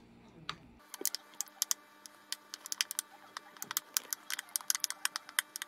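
Metal spoon stirring a thick cream mixture in a bowl, clicking quickly and unevenly against the sides. The clicks start about a second in.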